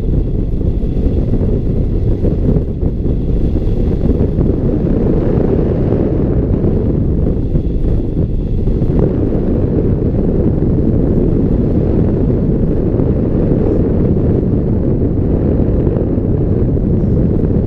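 Wind rushing over a hang glider in flight, buffeting the wing-mounted camera's microphone: a loud, steady low rumble.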